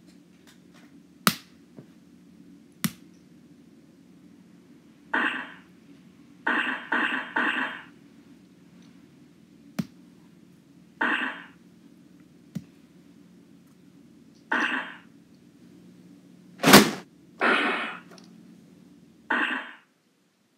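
Dubbed-in sound effects for a fight: sharp clicks and short hissing bursts, three of them in a quick run, over a steady low hum that cuts off near the end.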